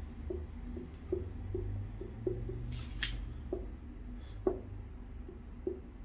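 Marker pen writing on a whiteboard: soft taps and strokes, with one louder scrape about three seconds in, over a low hum.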